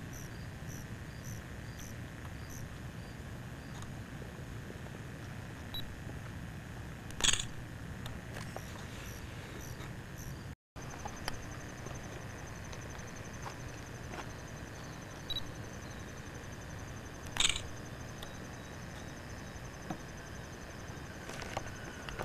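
Steady handheld-camera noise: hiss with a faint motor whine, broken by small handling clicks and two sharp knocks, one about a third of the way in and one about three-quarters in. Near the middle the sound drops out completely for a moment where the recording cuts.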